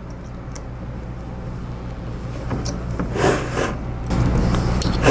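Small metal clicks and rubbing as screws are worked into the stepper motor mount on top of a mill's Z-axis column, over a steady low hum. The rubbing comes in two short scratchy spells in the second half.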